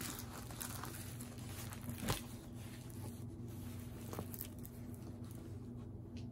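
A rolled Diamond Art Club diamond painting canvas and its paper backing rustling and crinkling as it is unrolled by hand, with a couple of short sharp clicks. A low steady hum sits underneath.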